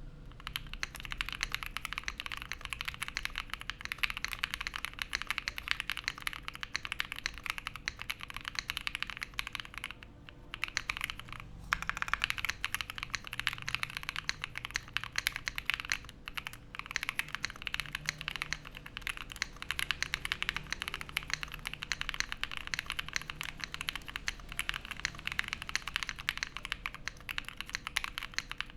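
Continuous fast typing on a Black Diamond 75 leaf-spring-mount mechanical keyboard with stock, unlubed KTT Wine Red linear switches on an FR4 plate and PBT doubleshot keycaps: a dense stream of key clacks. It pauses briefly about ten seconds in and again around sixteen seconds.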